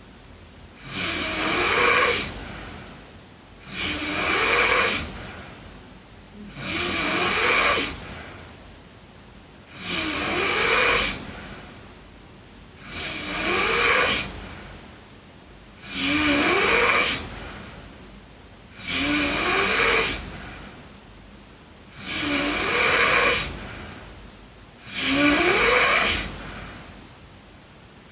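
A sleeping girl snoring in a steady rhythm: one snore about every three seconds, each lasting about a second and a half and rising in pitch, with much quieter breathing between.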